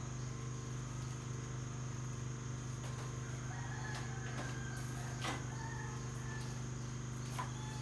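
A rooster crows faintly in the distance in the middle, over a steady low hum and a constant high insect drone. A few sharp knocks of gear being handled on a wooden floor, the loudest about five seconds in.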